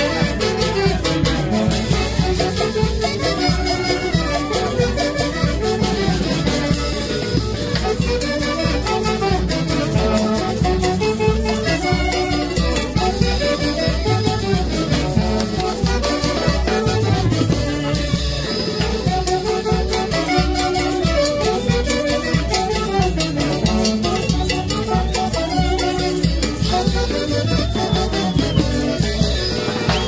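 Live Mantaro Valley orquesta típica of saxophones and violin playing a huaylash dance tune over a steady beat.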